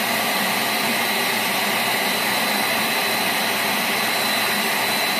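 Homemade forced-air gas forge burner running, its gas at about 5 psi: a steady, even rush of burning gas and blown air with a thin high whistle held over it.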